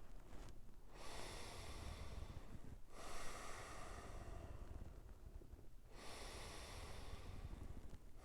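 A person breathing deeply in and out through the nose, in slow, even breaths of about two seconds each with brief pauses between them. This is a guided breathwork round of five deep nasal breaths.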